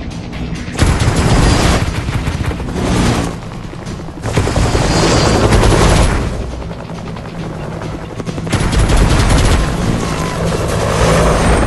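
Helicopter rotor thudding in rapid beats over background music. It swells loud three times as the machine sweeps close.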